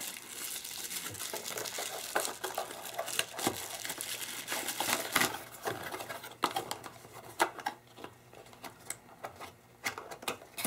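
A pink plastic anti-static bag crinkling as it is handled and folded. In the second half, scattered light clicks and knocks as a small cardboard box is handled.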